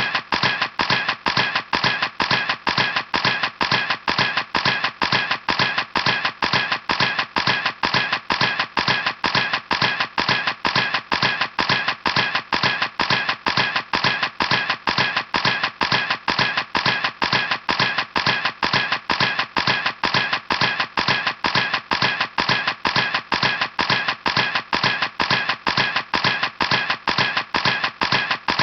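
Camera shutter clicking over and over at an even pace, about three clicks a second, without a break.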